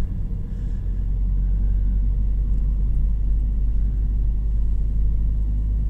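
Car driving on an asphalt road, heard from inside the cabin as a steady low rumble of engine and tyres.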